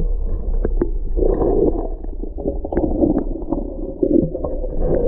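Muffled underwater sound picked up by an action camera held under the water: a steady low rumble and wash of moving water against the housing, with scattered small knocks and clicks.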